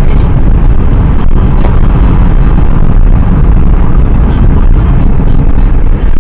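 Strong wind buffeting the camcorder's microphone: a loud, steady low rumble that drowns out everything else.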